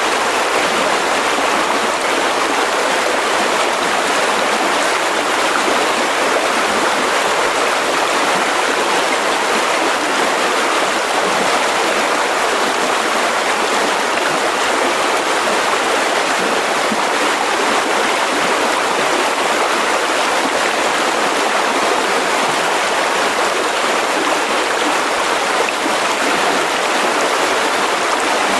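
Mountain river rushing over rocks: a steady, unbroken hiss of flowing water with no individual splashes standing out.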